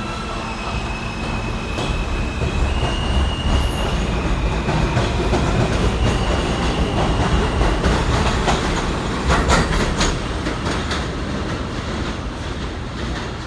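New York City subway train pulling out of an elevated station, its motors whining up in pitch and its wheels clattering over the rail joints as it gathers speed. The sound grows louder to a peak of clicks and clatter about two thirds of the way through, then fades as the train moves off.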